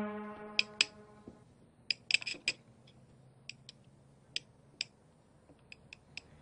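Light clinks of cutlery and dishes on a table: about fifteen short, sharp ticks scattered irregularly over a few seconds, some ringing briefly. A music tail fades out in the first second.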